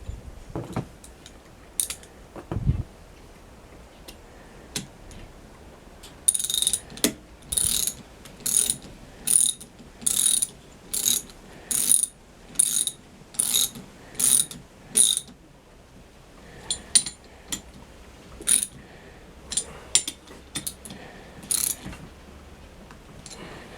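Hand ratchet wrench working a bolt: about a dozen evenly spaced ratcheting strokes, roughly one a second, with scattered lighter tool clicks and knocks before and after.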